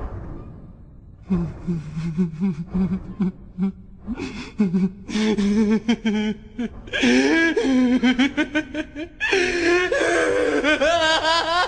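A man laughing maniacally. He starts with low, broken chuckles about a second in, which build into loud, high-pitched cackling from about seven seconds on.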